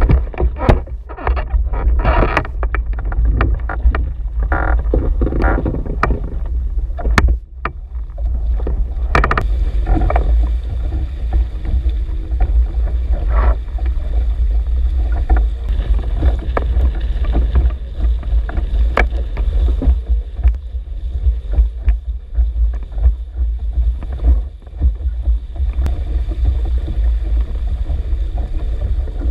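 Water slapping and rushing along the hull and outrigger float of a Eureka sailing canoe moving fast in a strong breeze, over a heavy rumble of wind on the microphone. Sharp slaps come thick in the first ten seconds, then the water settles into a steadier hiss with occasional slaps.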